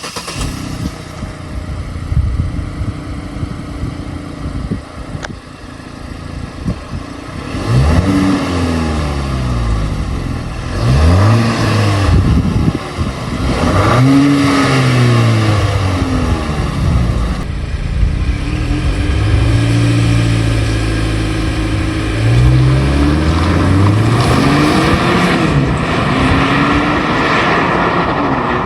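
A car engine running, then revved repeatedly: several blips of the throttle, the pitch climbing and falling back each time, about one every two to three seconds.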